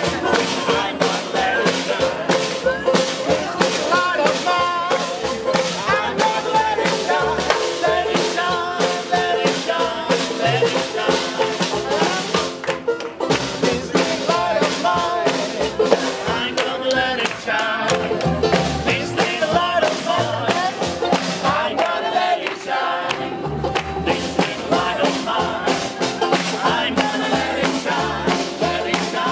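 Small acoustic swing band playing a hot-jazz number with a steady beat: clarinet, snare drum played with sticks, upright double bass and strummed banjo, with the players singing along.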